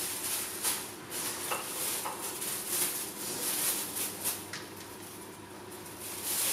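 Thin plastic freezer bags rustling and crinkling in irregular handfuls as raw burger patties are packed into them, over a steady sizzle of mince frying in a pot.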